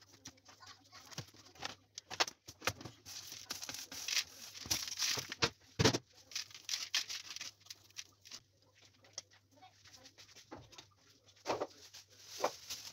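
Coarse salt crunching and scraping as hands scoop it and pack it over whole fish in a plastic bucket, in irregular gritty rustles and clicks.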